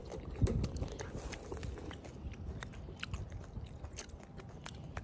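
Golden snub-nosed monkey chewing and biting food: a run of sharp, irregular crunching clicks over a low background rumble.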